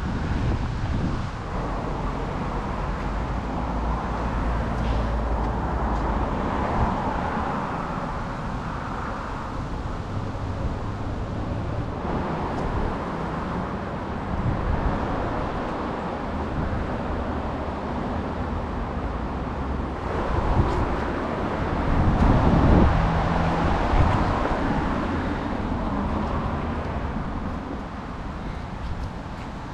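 Road traffic: a steady hum of passing cars, swelling about a quarter of the way in and again, loudest, about three-quarters of the way through.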